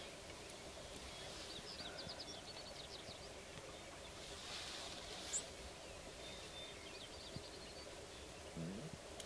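Faint outdoor ambience on a sharp-tailed grouse lek: a couple of short, high chirps and two brief, quick ticking trills over a low, steady background, with short rustling hisses about halfway through.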